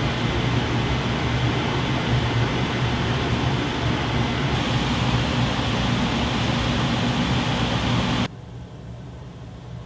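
Kitchen range hood blowers running at high speed: a steady rushing of air over a low hum. The sound shifts slightly about halfway through, then cuts abruptly to a much quieter fan rush about eight seconds in, as if a different hood takes over.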